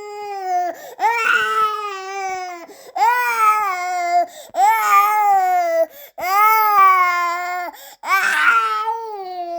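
Newborn baby crying: a string of about five rising-and-falling wails, each a second or so long, with short catches of breath between them.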